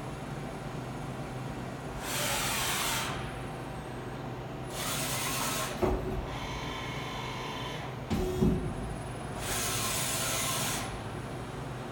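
Okuma V100R NC vertical lathe operating: a steady hum under three short bursts of hissing, with a clunk about six seconds in, a brief high whine after it, and a heavier clunk about eight seconds in.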